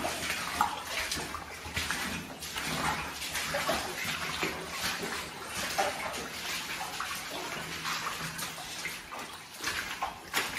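Rubber boots splashing and sloshing through shallow water on a mine tunnel floor: a steady run of walking footsteps, about two a second.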